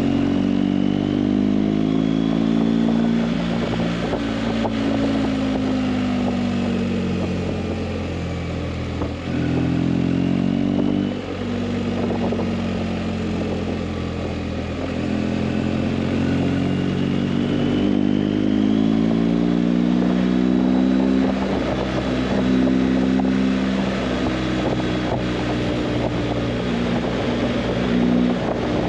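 Motorcycle engine running at road speed, its pitch drifting slowly up and down over a steady rush of wind and road noise, with two brief dips in the sound about nine and eleven seconds in.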